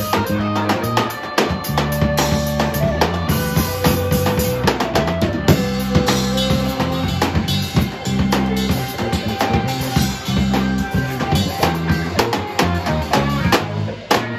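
A live band plays an instrumental: electric guitar lines over a drum kit keeping a steady groove with kick, snare and cymbals.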